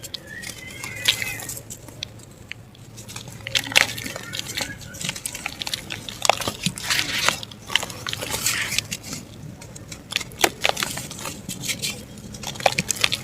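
Lumps of dried mud and black dirt crumbling and crunching, with irregular sharp crackles and snaps.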